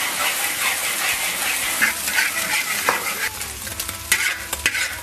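Beaten eggs sizzling as they fry in hot oil in a wok while they are scrambled. A few sharp clicks of the utensil against the pan come in the second half.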